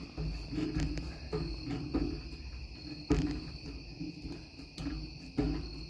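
Crickets chirping in a steady high drone, over a series of knocks and thumps from a man pulling himself up on metal playground monkey bars; the sharpest knock comes about three seconds in.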